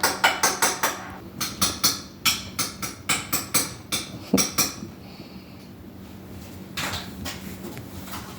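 Quick metallic clinks of a spoon tapping against a dish or can, about four or five a second, as cat food is dished out. The clinking stops about four and a half seconds in, leaving only a few faint sounds.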